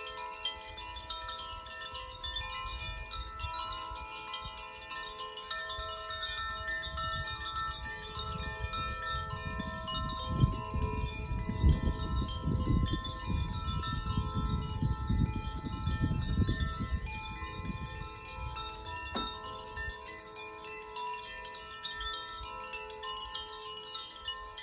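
Koshi and Irohana chimes in their four-element tunings ringing by hand, with many clear, sustained tones overlapping. Through the middle a low rumbling noise sits beneath the chimes, and a single sharp click comes about three quarters of the way in.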